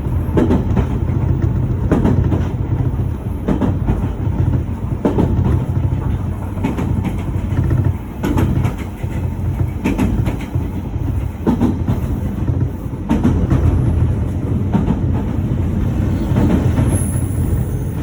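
Train running along the track: a steady low rumble, with the wheels clicking over rail joints every second or so.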